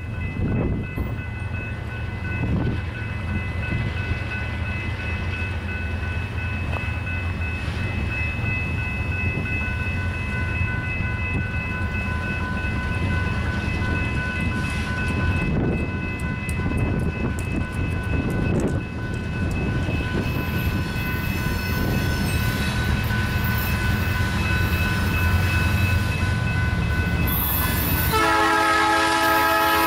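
Iowa Interstate SD38-2 diesel locomotive approaching with a freight train: a steady low engine rumble, with its horn sounding as a chord of steady tones. The horn grows much louder and fuller in the last two seconds as the train nears.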